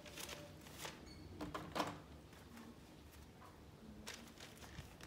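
Faint handling noise: a few soft clicks and paper rustles as whiteboard markers and notes are handled, the loudest click a little under two seconds in.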